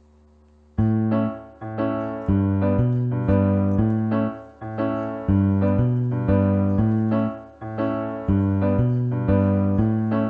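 Background music: a piano-like keyboard starts about a second in and plays a steady run of struck notes, about two a second.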